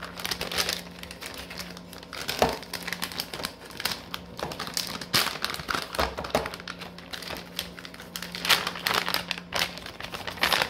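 Plastic bags of shredded and sliced cheese crinkling and rustling as they are handled and set into a clear plastic bin, with a few light knocks. A low steady hum runs underneath.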